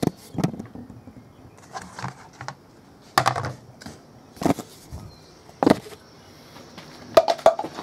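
Plastic bucket lids being handled and set down: a few separate knocks and clatters of hard plastic.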